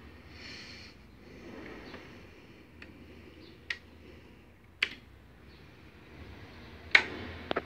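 Toggle switches and control knobs on a Gradiente A-1 power amplifier and P1 preamplifier being worked by hand, giving four or so sharp separate clicks, the loudest about seven seconds in.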